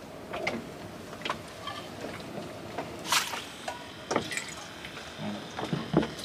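Faint liquid sounds with scattered light clicks and knocks from a frying pan being handled; the loudest is a short sharp noise about three seconds in.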